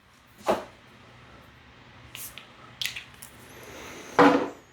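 A man sniffing perfume: several short, sharp breaths in through the nose, with a louder breathy hum of approval near the end.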